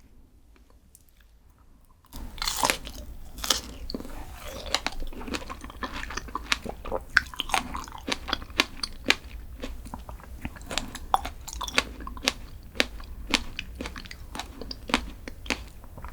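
Close-miked chewing of a crunchy dessert: dense, sharp crunching and crackling, many bites and chews per second, starting about two seconds in after a quiet start.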